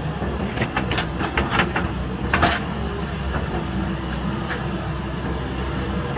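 JCB backhoe loader's diesel engine running steadily under load, with a series of sharp metallic clanks and knocks in the first half as the machine digs broken concrete brick.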